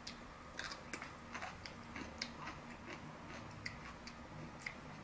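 Faint, close-up chewing of food, with a string of small irregular clicks and crunches from the mouth.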